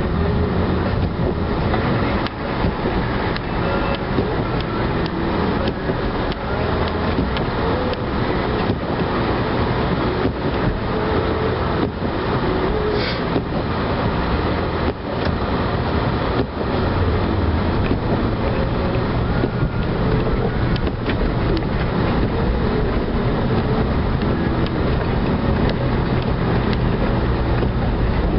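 A plow vehicle's engine running steadily under load while pushing snow with a Boss plow, with many short knocks and rattles throughout.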